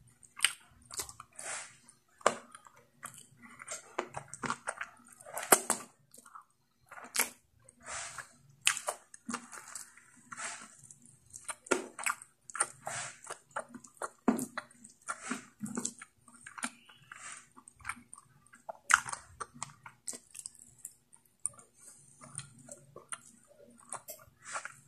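Close-miked chewing and wet mouth sounds of someone eating saucy pork curry and rice: irregular smacks and clicks throughout.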